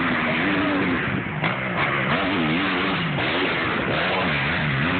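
Dirt bike engine revving up and down, its pitch rising and falling over and over as the bike rides the track and takes a jump.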